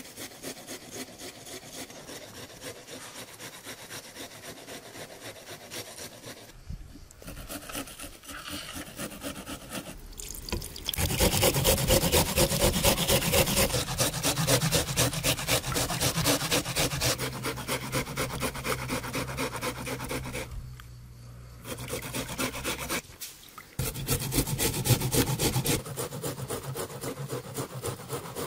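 Onion being grated on a hand-held metal grater: quick, even rasping strokes, softer at first and louder from about a third of the way in. A low steady hum sits under part of the louder stretch.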